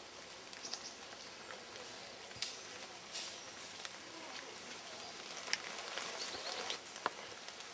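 Rustling and snapping of dry twigs and leaf litter in forest undergrowth, as irregular sharp cracks and crackles over a steady hiss.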